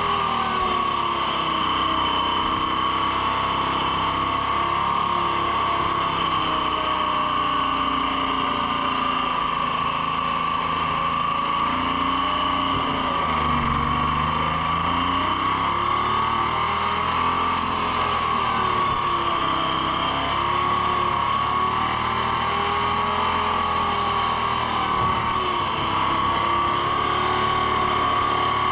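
Treefarmer skidder's diesel engine running as the machine is driven, its pitch rising and falling with the throttle and sagging briefly about halfway through before picking back up.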